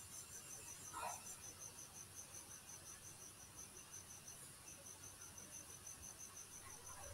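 Near silence with a faint cricket chirping steadily several times a second, pausing briefly about halfway through.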